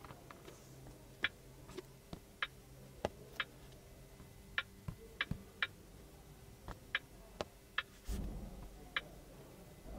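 Irregular, faint sharp clicks as a finger taps through menus on the Geely Galaxy E8's central touchscreen, about fifteen in ten seconds. A short low rustle comes a little after eight seconds in.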